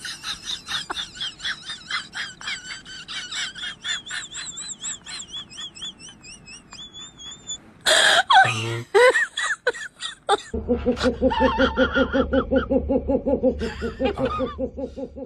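People laughing in several stretches: a high, rapid giggle for the first several seconds, a loud outburst about eight seconds in, then a lower, steady rhythmic laugh near the end.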